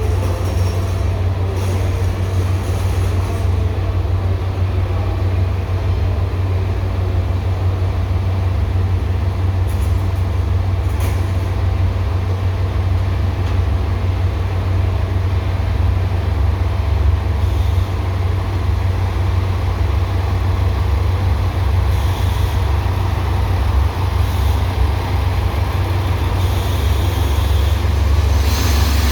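A train's steady low rumble, with a brief hiss near the end.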